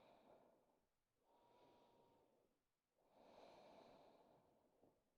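A person's slow, deep breathing, faint and close: breaths in and out about every two seconds, a louder breath alternating with a softer one that carries a faint whistle.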